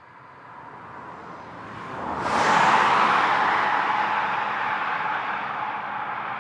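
A rushing noise that swells, bursts in loudly about two seconds in, then slowly dies away, with a steady high tone underneath throughout.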